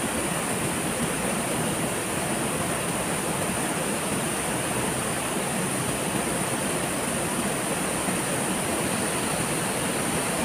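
Steady rush of falling water from a waterfall, an even noise with no breaks, with a thin high-pitched hiss running along it.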